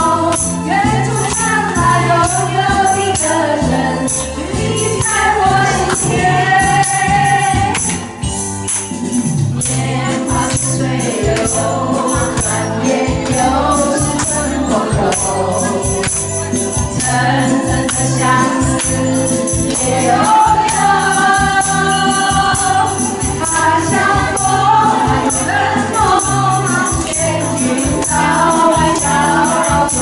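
Women singing into microphones, amplified through a PA over a recorded music backing track with a steady beat.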